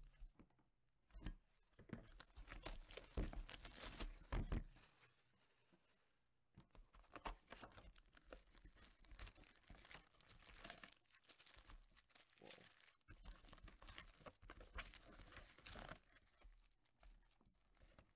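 Hands opening a cardboard trading-card hobby box and handling the foil card packs inside: faint, irregular tearing and crinkling, with a few knocks in the first few seconds and a short lull around the middle.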